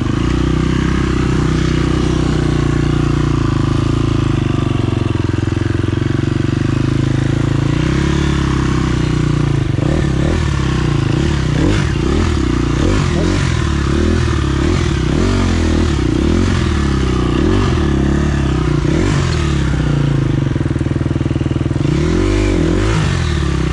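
Enduro dirt bike engine close to the microphone, running at a steady pitch, then about eight seconds in the throttle is blipped again and again in quick rises and falls of pitch as the bike picks its way over rocks.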